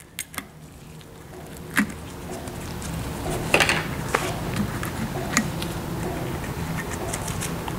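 Plastic mixing cups handled as paint is poured from one into the other: a few light clicks and taps, the sharpest about three and a half seconds in. Under them runs a low steady mechanical hum that grows louder over the first few seconds and then holds.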